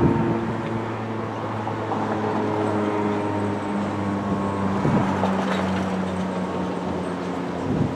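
Motor vehicle engines running: a steady low hum that shifts pitch a couple of times, as traffic moves past.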